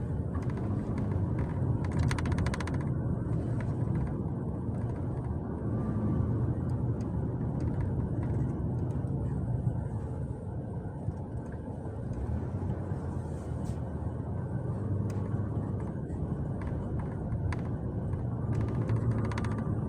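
Steady low rumble of a car in motion heard from inside the cabin: engine and tyre road noise at slow city-traffic speed.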